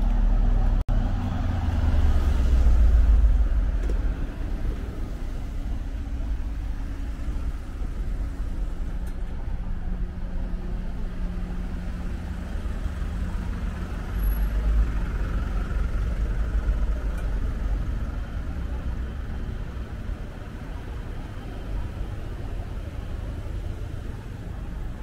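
Street traffic: motor vehicles passing close by, their low engine rumble swelling about two seconds in and again about fourteen seconds in over a steady street background.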